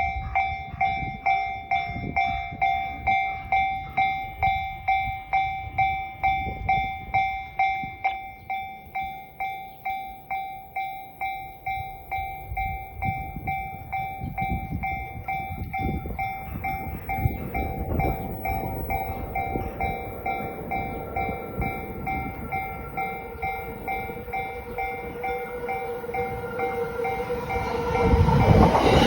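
Japanese level-crossing warning bell ringing at about two strikes a second. From about halfway through, the rumble of an approaching train builds under it, and near the end the train reaches the crossing loudly.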